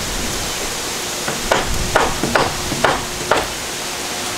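A hammer striking about five times, roughly two blows a second, driving nails into a rough-cut wooden rafter, over a steady rush of wind.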